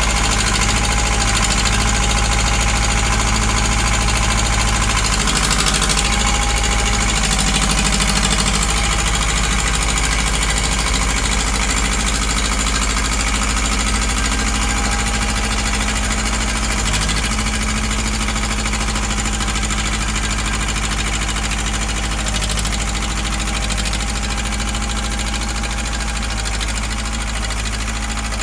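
Tractor engine running steadily under load, its note shifting a few times as the work goes on.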